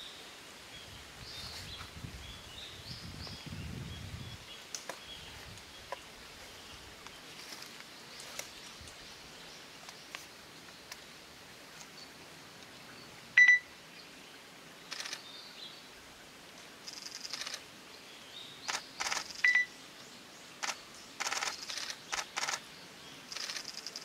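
Japanese green woodpecker excavating its nest hole in a tree trunk with its bill: scattered faint taps, then short rasping bursts of wood being chiselled and scraped, coming thicker in the second half. Two short high beeps stand out as the loudest sounds, about halfway through and again a few seconds later.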